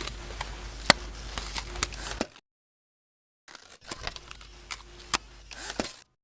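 Paper being torn: two separate tearing sounds, each about two and a half seconds long, full of crackles and sharp snaps, with dead silence between them.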